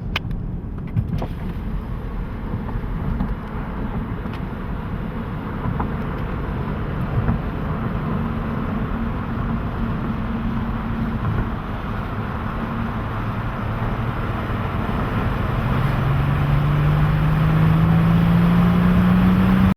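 Sports car driving at speed, with steady road and wind noise over a low engine rumble. In the last few seconds an engine rises in pitch and grows louder as the car accelerates hard.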